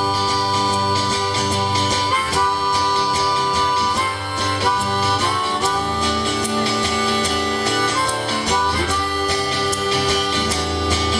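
Harmonica playing a melody of held notes that change every second or two, over strummed guitar, in an instrumental break of a live folk-country band.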